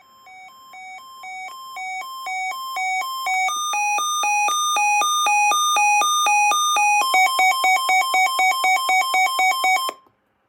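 Sangean CL-100 weather alert radio sounding its alert siren: a loud two-tone electronic beeping that alternates between two pitches and grows louder over the first few seconds. About three and a half seconds in it switches to a higher, slower pair of tones, and about seven seconds in to a faster alternation, before cutting off suddenly near the end.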